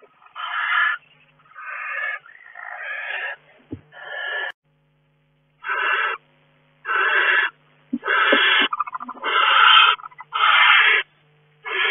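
Barn owls in a nest box giving a series of rasping hisses, about ten in all, each half a second to a second long, with short gaps between. A couple of brief low knocks come from inside the box.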